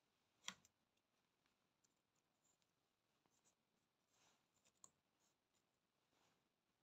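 Near silence with a few faint clicks and soft rustles of nylon netting twine, a netting needle and a mesh gauge being handled while tying cast-net loops. The sharpest click comes about half a second in, with another near the five-second mark.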